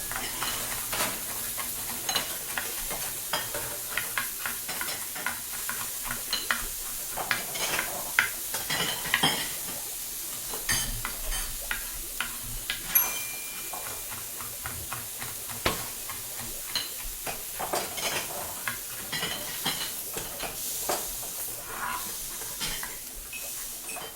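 Kitchen ambience: a steady sizzling hiss like food frying in a pan, with frequent clicks, clinks and knocks of utensils against cookware.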